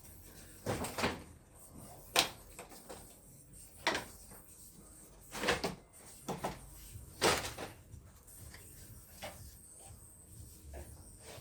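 Irregular sharp clicks and knocks, about seven of them with fainter ones near the end, from plastic and metal parts being unclipped and handled during removal of a Volkswagen Touareg's radiator fan assembly.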